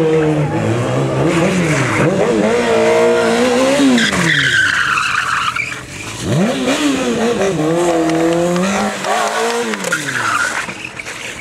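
Honda CBR600 F4i sport bike's inline-four engine revving up and down during stunt riding, climbing in pitch and dropping away twice. About four seconds in, a tyre squeals with a falling pitch as the revs drop, and a shorter squeal comes near the end.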